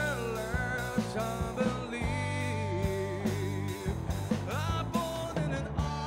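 Rock band playing live: a male lead singer over electric guitar, electric bass and a drum kit.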